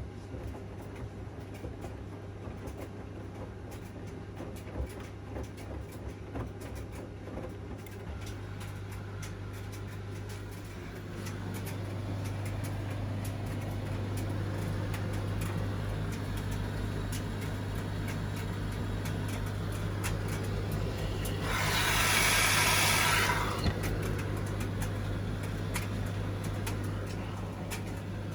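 Washing machine running with a steady low hum that grows louder about ten seconds in, and a loud hiss lasting about two seconds near the end.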